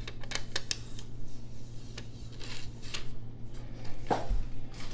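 Protective plastic film being peeled off a new replacement phone screen: light crinkling with scattered small clicks and taps, the sharpest about four seconds in, over a faint steady low hum.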